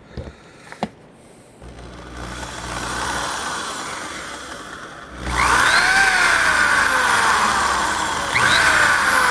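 Power drill motor whining as it spins the drive input of a Honda CB350 speedometer. It winds up gently from about two seconds in, then in two harder trigger pulls, about five and eight seconds in, its pitch climbs and slowly sags. The needle stays at zero because the bit does not properly fit the gauge's square drive socket.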